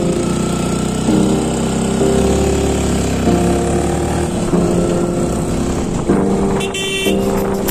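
Yamaha FZ motorcycle's single-cylinder engine running steadily while riding, with wind rush on the handlebar-mounted camera.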